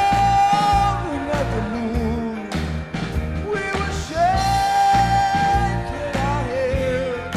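A man singing through a microphone over backing music with a steady bass beat. He holds two long high notes, one near the start and one from about four seconds in, and each slides down at the end.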